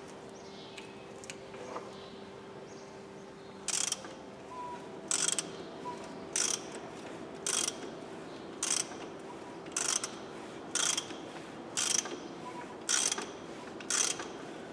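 Ratchet wrench turning the crankshaft of a BMW 320d's four-cylinder diesel by hand at the crank pulley bolt: ten short bursts of ratchet clicks, about one a second, starting about four seconds in, one burst for each back-swing of the handle. The engine turns over freely after its timing chains were replaced.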